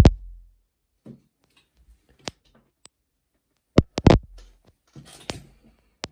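Handling noise of a tablet being moved and set down: scattered sharp clicks and knocks against a tabletop, loudest a close pair about four seconds in, with faint rustling between.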